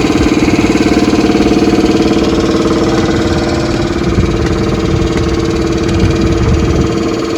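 A machine runs steadily with a loud, fast-pulsing engine-like hum and low rumble, and does not change for the whole stretch.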